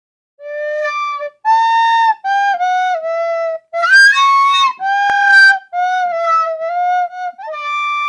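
Music: a solo flute-like woodwind melody, a string of held notes with short breaks between them.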